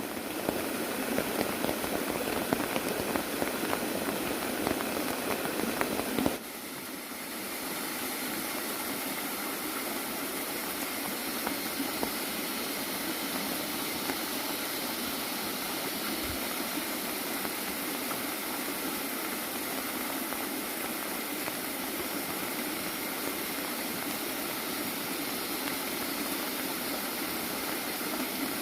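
Water falling from a bamboo waterfall into a fish pond, a steady rushing splash. About six seconds in it changes abruptly from a louder, choppier splashing to a smoother, even flow.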